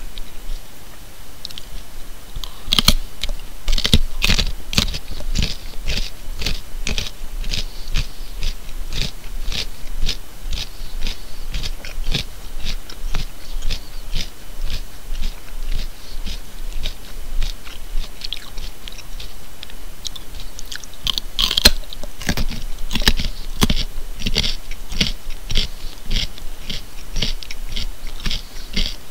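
A person chewing a carrot: a steady run of crisp crunches, about two to three a second, with two louder snaps of fresh bites, about three seconds in and about three-quarters of the way through.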